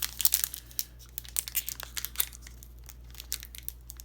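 Crinkling and rustling of a trading card pack wrapper and cards being handled, dense short crackles for about two seconds, then sparser.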